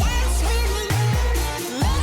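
Upbeat electronic pop background music with heavy sustained bass notes.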